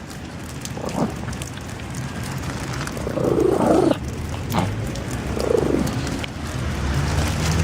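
An animal vocalising twice, a longer call about three seconds in and a shorter one about two seconds later, over steady background noise with scattered clicks.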